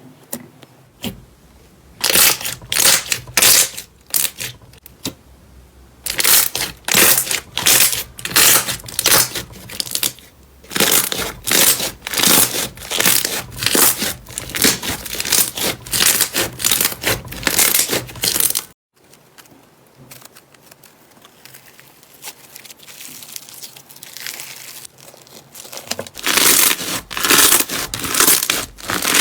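Slime being squeezed and pressed by hand: runs of quick crackling pops in several bursts with short pauses. About two-thirds of the way through it drops to a quieter stretch before the popping picks up again near the end.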